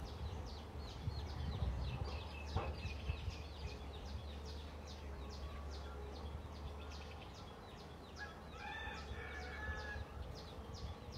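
Outdoor ambience: a regular high chirping, about two chirps a second, over a low steady rumble, with a brief bird call of several pitched notes about three-quarters of the way through.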